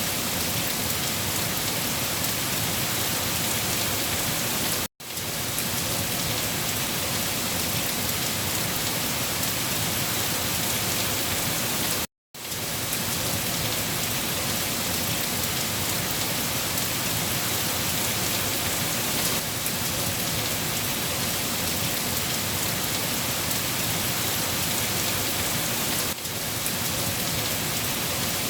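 Steady rain falling and pattering on surfaces, an even, dense hiss. It cuts out to silence for a split second twice, about five and twelve seconds in.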